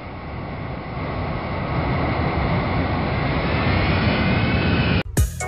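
Jet aircraft engine noise, a steady rushing sound that grows louder, with a faint high whine that slides slightly down in pitch toward the end. It cuts off abruptly about five seconds in, as music with sharp drum hits begins.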